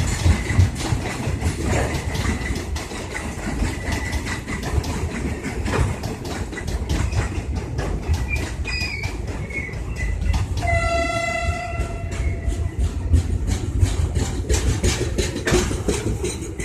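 Freight train hauled by diesel locomotives passing, its engines rumbling and its wheels clicking steadily over the rail joints. The locomotive horn sounds once, a blast of about two seconds, a little under eleven seconds in.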